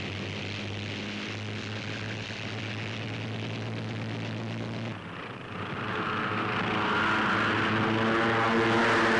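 Propeller engines of light single-engine training planes droning steadily. About five seconds in, the sound cuts and a louder engine drone builds as planes take off and fly low past.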